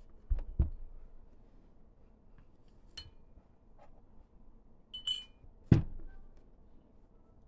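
Metal parts of a rotary fly-tying vise being handled and set down on a mat: two dull thumps about half a second in, a light metallic clink about three seconds in, then a ringing clink and a sharp knock a little after five seconds.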